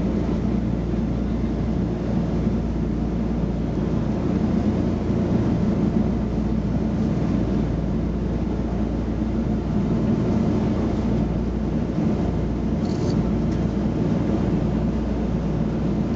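Twin radial piston engines of a Douglas DC-3 running steadily on final approach to landing, heard from inside the aircraft as a deep, even drone.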